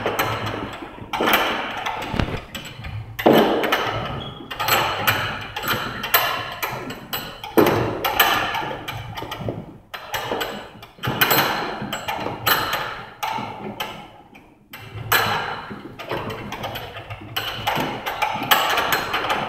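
Heavy battle ropes slapping the floor over and over as they are whipped in alternating waves, a fast run of slaps broken by short pauses every few seconds.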